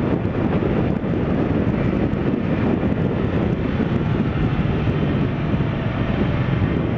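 Yamaha XJ6 motorcycle cruising at about 105 km/h, its steady engine drone mixed with heavy wind rush on the onboard camera microphone.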